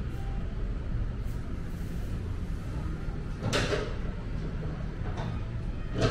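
Steady low room hum, with a short scraping rustle about three and a half seconds in, a fainter one a little later, and a sharp knock like a cupboard or door just before the end.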